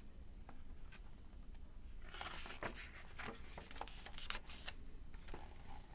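Page of a picture book being turned and handled: a short papery rustle about two seconds in, with scattered light clicks and taps from fingers on the pages.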